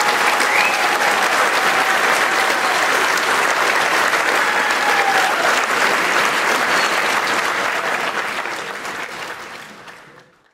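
Large audience applauding steadily, fading out over the last two seconds.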